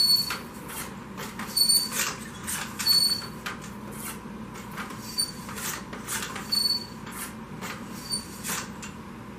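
A cleaning rod and jag being worked back and forth through a rifle bore in repeated quick strokes, with short high squeaks on some strokes.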